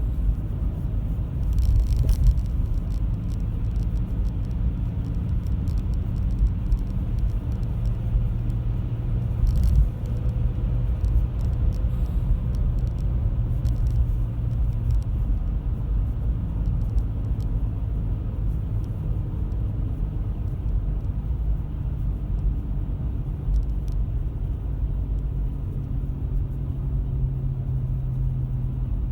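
A 2005 Toyota Estima on the move, with road rumble and a steady low motor-like hum whose pitch shifts slightly and grows stronger near the end. The hum comes from a worn right rear hub bearing.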